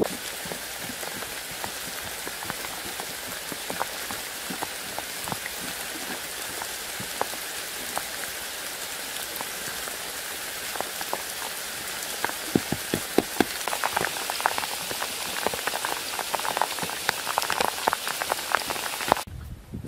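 Steady rain falling, a continuous hiss with sharp drop strikes scattered through it that grow more frequent from about twelve seconds in; it cuts off suddenly near the end.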